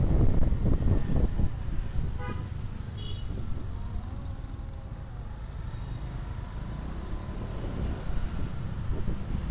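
Road traffic heard from a Honda Vario 125 motor scooter riding into slow, congested traffic. A low rumble with wind on the microphone is loud at first and eases as the scooter slows. A vehicle horn gives a short toot about two seconds in.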